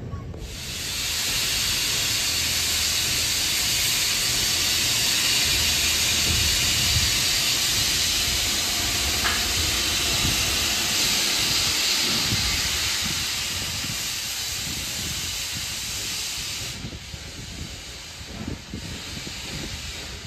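Steam locomotive venting steam: a loud, steady hiss that starts about half a second in, holds for some sixteen seconds, then cuts off suddenly.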